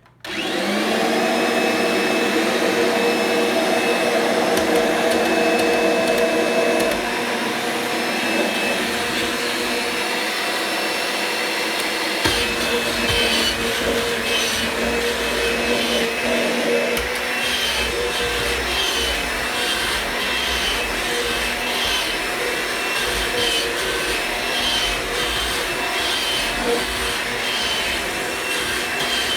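Kirby G6 upright vacuum cleaner switched on, its motor spinning up and settling into a loud, steady whine. The brush-roll belt is disengaged for hard floor mode. About twelve seconds in, a low rumble joins the whine.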